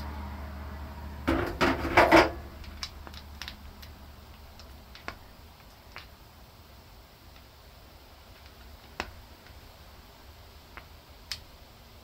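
Air impact wrench fired in three short bursts, loud, between about one and a half and two seconds in, on a nut of a yard tractor's steering linkage. Then scattered light metallic clinks and taps.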